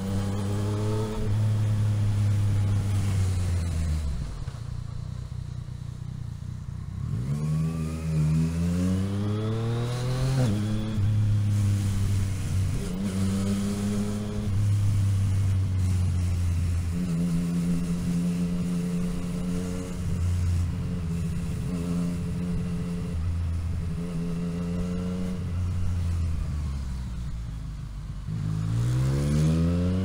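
Motorcycle engine, heard from the rider's seat, riding at low speed through town streets. The revs fall back about 4 s in, then climb in two quick rising pulls as it accelerates through the gears. It then runs steadily, the revs easing and picking up, before rising again near the end.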